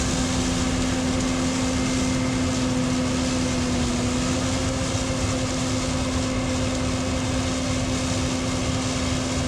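Engine of a large farm machine running steadily at a constant speed, with a steady hum that holds one pitch.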